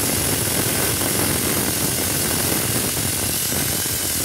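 Pressure cooker on a gas burner whistling: a steady rush of steam escaping past the weight on the lid, the sign that the cooker has reached full pressure.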